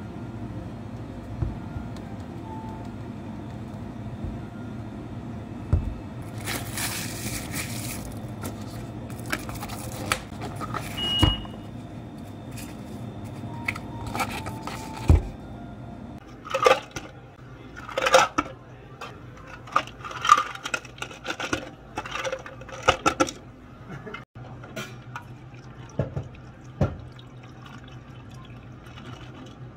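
Iced drinks being made: a thick smoothie poured into plastic cups and the cups handled, then, over the second half, a run of short clatters of ice cubes dropping into plastic cups. A low steady hum runs underneath.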